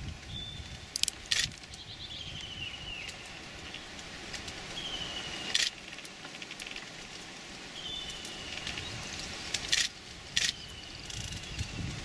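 A bird repeating a short falling whistle about every three seconds over faint rustling, with a few sharp clicks or snaps in between.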